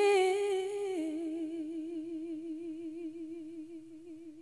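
A singer's voice holding one long note with a steady vibrato, stepping down in pitch about a second in and slowly fading away at the end of a sung line.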